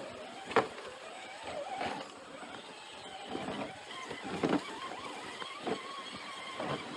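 Axial Wraith RC rock crawler's electric motor whining, its pitch wavering up and down as the throttle changes, with several sharp knocks as the truck crawls over rocks; the loudest knock comes about half a second in.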